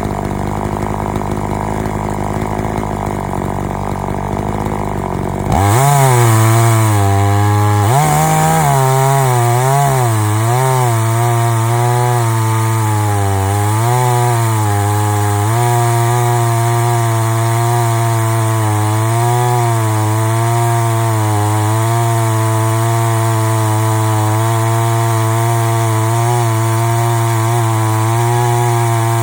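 Chainsaw on a chainsaw mill idling, then throttled up sharply about five seconds in and run at high revs cutting through a log. The engine note dips and wavers as the chain takes the load, then holds steady.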